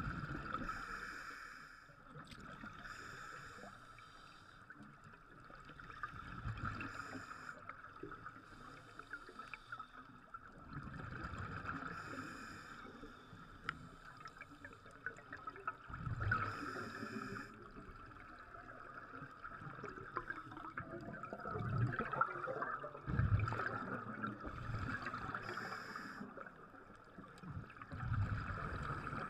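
Scuba diver breathing through a regulator underwater: bursts of exhaled bubbles gurgle past the camera every four to six seconds over a steady hiss.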